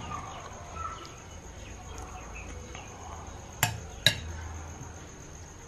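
Two sharp clinks of a metal fork against a ceramic plate, about three and a half and four seconds in, as the fork is set down on the plate.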